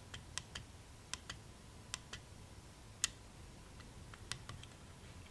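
Small push-buttons on a Garmin Dash Cam 55 clicking as they are pressed to scroll through its settings menu: about a dozen irregular clicks, one louder about three seconds in.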